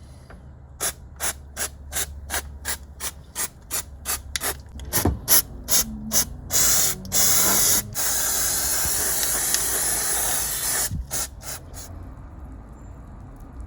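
Pressurised spray hissing in short squirts, about three a second, then longer squirts and a steady spray of about three seconds, ending with a few more quick squirts.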